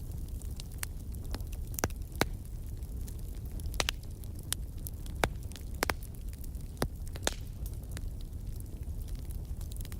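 Wood fire burning in a fireplace: a steady low rumble of the flames with irregular crackles and sharp pops, the loudest about two seconds in, near the middle and a little past seven seconds.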